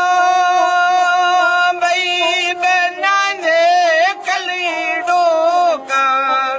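Folk singing: a solo voice holds long, wavering notes with ornamented bends, over a steady sustained drone from an accompanying instrument.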